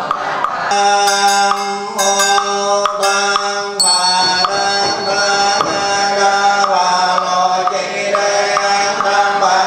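Buddhist monks chanting together in long, held notes, with sharp knocks about once a second keeping the beat. A bowl bell is struck about four seconds in and rings on under the chant.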